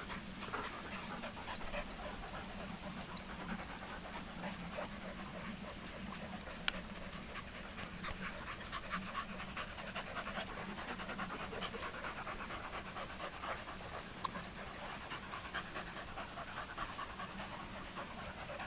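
A dog panting steadily after running to fetch a ball.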